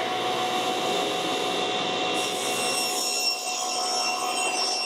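SawStop table saw running with its blade cutting through a wooden board fed along the fence: a steady whine of motor and blade with the rasp of the cut. A higher whine joins about two seconds in.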